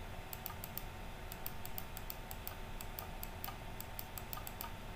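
Computer mouse clicking repeatedly: short, sharp clicks at an irregular pace of a few per second as points are placed with a pen tool, over faint hiss and a low hum.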